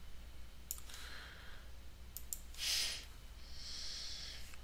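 A few mouse clicks and a person breathing close to the microphone, with one louder breath out about two and a half seconds in, over a steady low hum.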